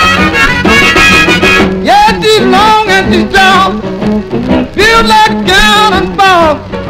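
Early-1950s blues record playing on a turntable from a 45 rpm single: a man singing over band accompaniment.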